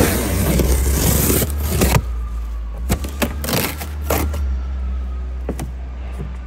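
Plastic stretch wrap on a pallet rubbing and scraping against the phone as it is pushed along the wrap. The scraping is loud for about two seconds, then a few sharp crackles follow, over a steady low hum.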